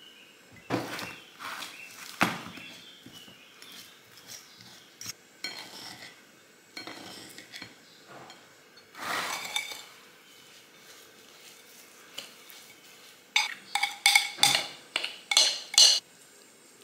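Knife and spoon knocking and clinking against crockery as fruit is cut in a bowl and a pie filling is spread in a baking dish: scattered knocks, then a quick run of ringing spoon clinks against the dish near the end.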